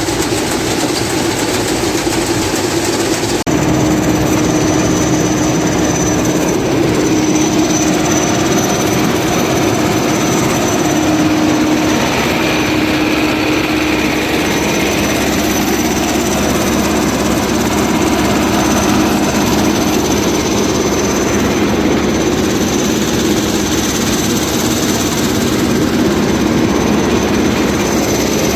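Niva SK-5 combine harvester running steadily, a loud constant engine and machinery noise with a steady hum; the sound changes abruptly about three and a half seconds in.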